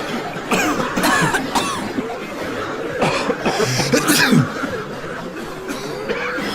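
Several people coughing over one another, as from smoke, with voices mixed in; the loudest coughs come about three to four and a half seconds in.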